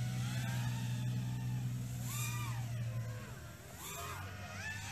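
Racing quadcopter motors whining, their pitch sliding up and down as the throttle changes, over a steady low hum that drops out briefly about three seconds in.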